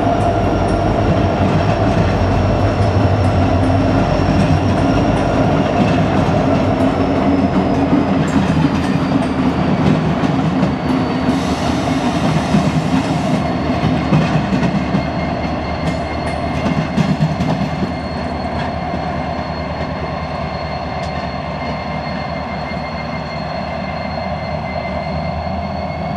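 Montana Rail Link diesel locomotives, the mid-train helpers of a long grain train, rolling slowly past with their engines running and wheels clicking over the rail. A thin high wheel squeal sinks slightly in pitch over the first half and then holds, and the sound eases a little as the locomotives move away.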